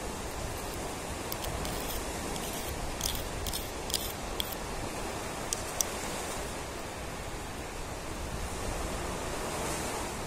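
Steady rushing surf noise on a beach, with a series of light clicks and taps from small shells being handled and set down, from about a second to six seconds in.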